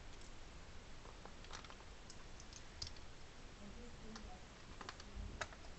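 Faint, scattered clicks and taps of plastic 4x4 Rubik's Cube pieces being handled and fitted together.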